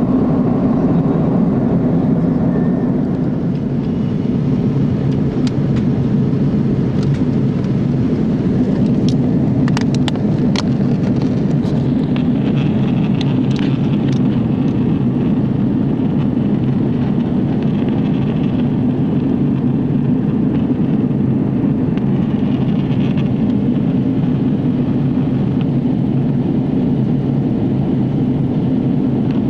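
Steady jet airliner cabin noise: the engines and rushing air heard from inside the cabin, a loud, even low drone with a few faint clicks about a third of the way in.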